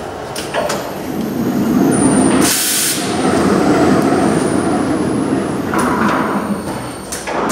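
TE 1000 R/II horizontal stretch wrapper running a wrap cycle: the film ring turns around the package with a steady mechanical run and a thin high whine. A short, loud hiss comes about two and a half seconds in, and the run dies away near the end.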